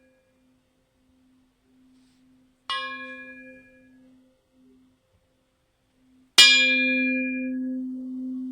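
A bell-like metal tone struck twice, about three seconds apart, each strike ringing out with a low wavering hum under a bright fading overtone; the second strike is much louder and rings on longer.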